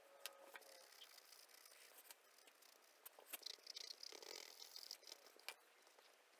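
Near silence: faint room tone with scattered small clicks and a brief soft scratchy rustle a little past the middle.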